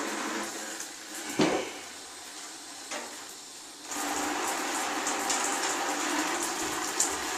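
Water rushing from an opened central heating drain valve into a bucket, releasing excess pressure from the heating circuit. The flow weakens about a second in, with a knock, and strengthens again about four seconds in.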